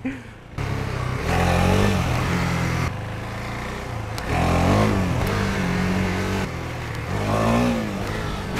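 Husqvarna Svartpilen 401's single-cylinder engine being revved hard three times, the pitch rising and falling back with each throttle burst, as the rider tries power wheelies.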